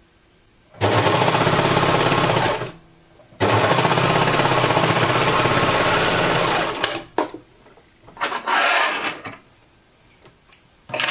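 Overlock (serger) stitching at speed: two long runs, about two and three seconds, with a short pause between, then a few shorter bursts.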